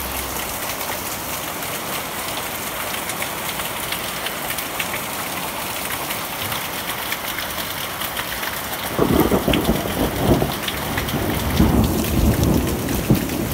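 Heavy rain falling in a steady hiss, with a low rumble joining about nine seconds in and continuing in uneven swells.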